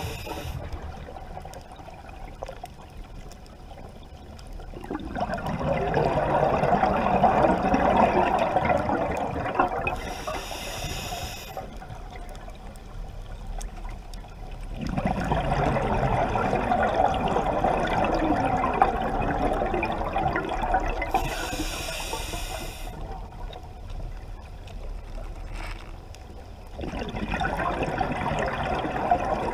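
Scuba diver breathing through a regulator underwater: a short hiss on each inhale, then a long gurgling stream of exhaled bubbles, in a slow cycle of about one breath every ten to eleven seconds.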